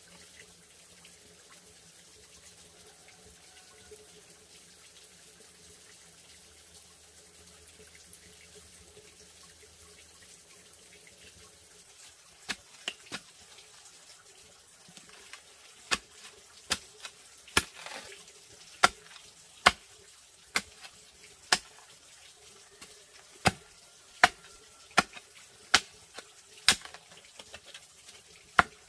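Faint background at first. Then, from about twelve seconds in, a run of sharp, loud knocks, irregular and about one a second.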